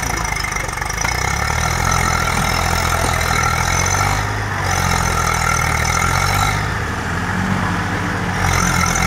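Two Eicher tractors' diesel engines running hard under load as the coupled tractors pull against each other in a tug-of-war, a steady low drone.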